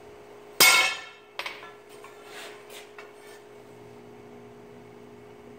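Steel clanging once on a blacksmith's anvil, a sharp hit with a short metallic ring, followed about a second later by a lighter clank and a few faint taps. A steady low hum runs underneath.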